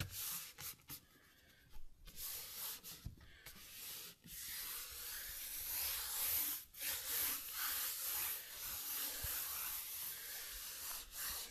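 Hands rubbing and sweeping over a sheet of vinyl flooring, pressing it down onto the adhesive: a soft brushing rub, in short strokes for the first few seconds, then almost continuous.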